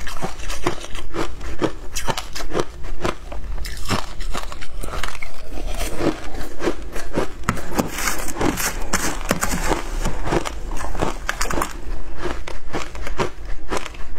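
Close-miked crunching and chewing of shaved ice, a quick run of crisp bites, several a second. About eight seconds in, a metal spoon scrapes and scoops ice in a plastic tub.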